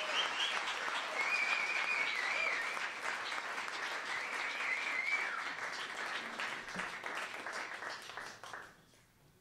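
Audience applauding, with a few long, wavering high whistles over the clapping. The applause fades out about a second before the end.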